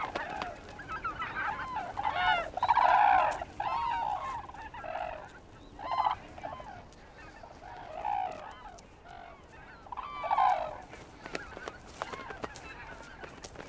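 A flock of large birds calling: repeated honking calls, clustered loudest a few seconds in and again near ten seconds.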